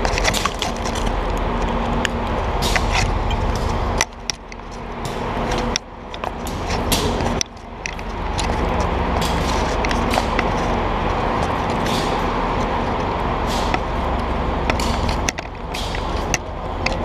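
Steady low mechanical hum in a rail yard, with frequent sharp clicks and knocks from a firefighter's gear while walking. The overall sound drops off suddenly a few times and swells back up.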